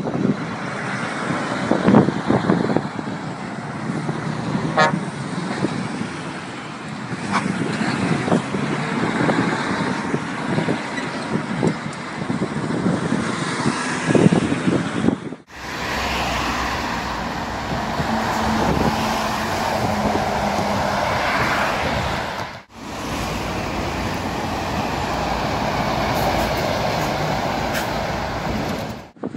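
Road traffic going by: articulated lorries and cars passing close, with engine and tyre noise. The sound breaks off abruptly twice, about halfway through and again about three-quarters through, where separate recordings are joined.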